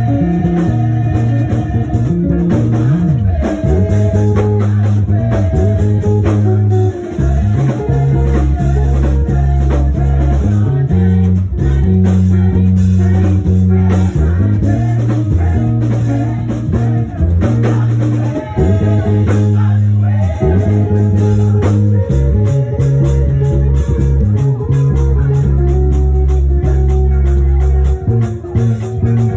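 Band music with a deep, loud bass line, guitar and drums, with some singing.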